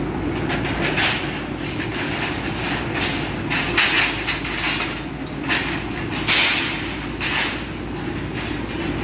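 Steady low mechanical rumble with irregular rattles and knocks over it.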